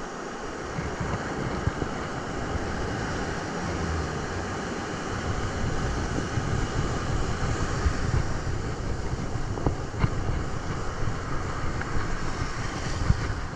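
Wind buffeting the microphone over the steady wash of ocean surf on a beach.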